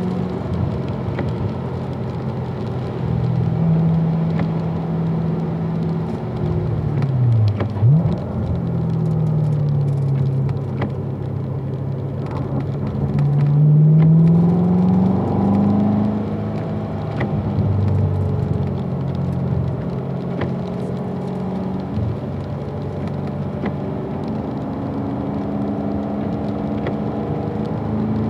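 Chevrolet Corvette Grand Sport's 6.2-litre V8 heard from inside the cabin on a wet track. The engine note falls as the car slows, with a quick blip of revs on a downshift about eight seconds in, then rises as it accelerates out of a slow corner and climbs again near the end. Under it runs a steady hiss of tyres on wet pavement.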